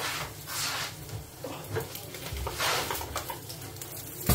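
Food sizzling as it fries in a pan, rising in a few short swells, with light kitchen clatter. A sharp knock comes near the end.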